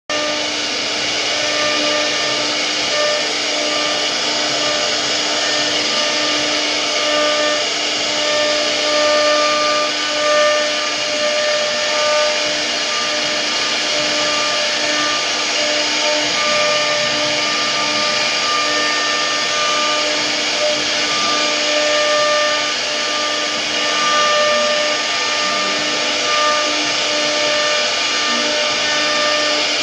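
CNC router spindle milling a decorative relief into wood: a steady whine over continuous cutting noise, with a pitched hum that swells and fades as the bit's load changes.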